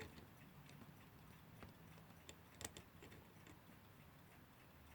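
Near silence with a few faint, scattered clicks from the setting knobs and works of a 1947 Timlec Lectolarm electric alarm clock being turned by hand.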